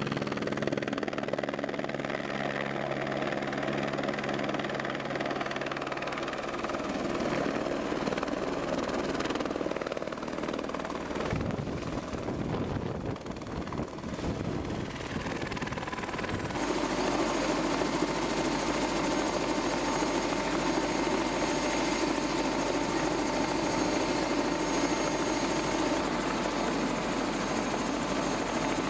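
Eurocopter AS350 Squirrel helicopter flying in, landing in blowing snow, then running on the ground with its rotor turning. Its rotor and turbine run steadily throughout, and the sound changes abruptly twice, about eleven and sixteen seconds in.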